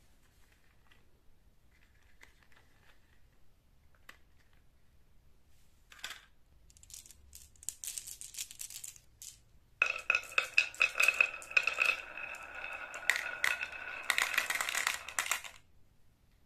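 A handful of marbles clinking together, then dropped into a toy dump truck's plastic tipper bed. They clatter and rattle there with a ringing tone for several seconds before stopping.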